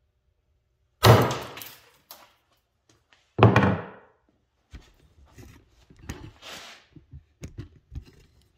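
Two heavy hammer blows on a workbench top, about two and a half seconds apart, smashing a wireless earbud to pieces. A run of lighter knocks and clatters follows.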